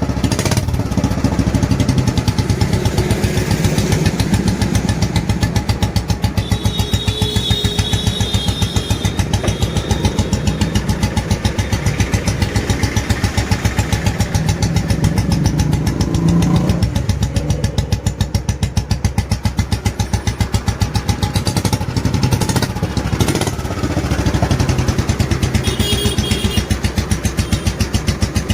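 Made-in-England Royal Enfield G2 Bullet's single-cylinder four-stroke engine idling with its steady, even thump, running on a freshly fitted piston and rings.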